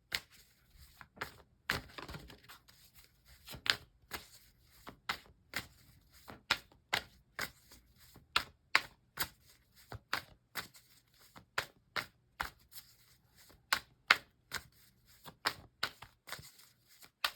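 A deck of tarot cards being shuffled by hand: a steady run of short, crisp card clicks and flicks, about two a second.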